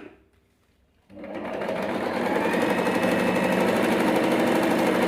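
Singer electric sewing machine starting up about a second in, its motor speeding up and then running steadily as it stitches one of its decorative pattern stitches.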